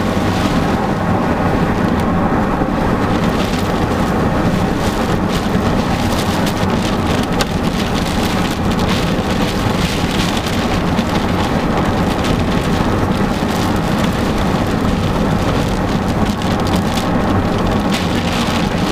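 Rain pelting the windshield and roof of a moving car: a steady, dense patter of drops over a constant low road and engine noise.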